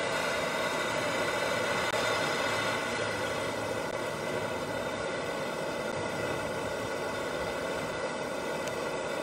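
Hand-held propane torch burning with a steady hiss, its flame held on wood chips in a smoke generator to light them.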